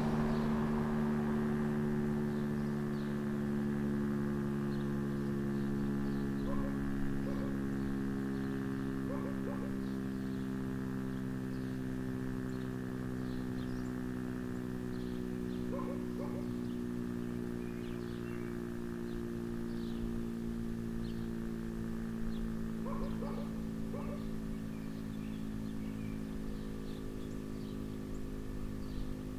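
Federal Signal STH-10 outdoor warning siren winding down after a short alert: a steady low chord of several tones that sinks slowly in pitch and fades gently. Birds chirp over it throughout.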